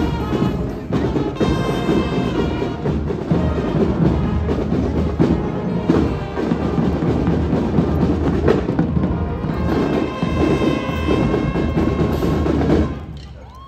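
Marching band playing a tune on brass and drums, with sousaphone, trumpets and bass drum; the music stops about a second before the end.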